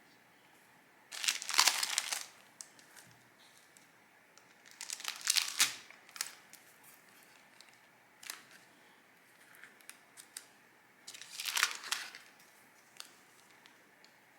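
Paper and plastic packaging crinkling and rustling in three roughly one-second bursts, with small clicks and taps in between, as stationery is unwrapped by hand.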